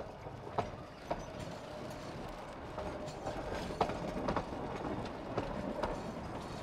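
Narrow gauge wooden passenger cars rolling slowly past, with scattered clicks and clanks from the wheels and running gear and a faint squeal through the middle.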